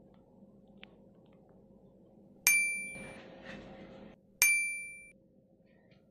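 Two bright bell-like dings, about two seconds apart, each striking suddenly and ringing out as it fades: an edited chime sound effect.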